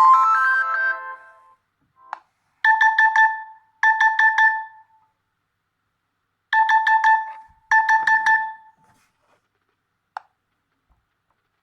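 Nokia G20 smartphone ringtones playing from the phone's speaker. A melodic multi-note ringtone fades out in the first second or so. Then a trilling ring at one pitch sounds as two double rings, each ring a short burst of rapid pulses.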